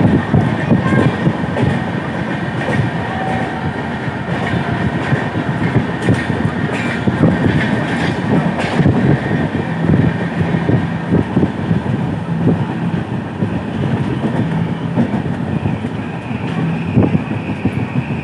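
A train running along the track, heard from on board: a steady low rumble with frequent short knocks from the wheels, and a faint high whine near the end.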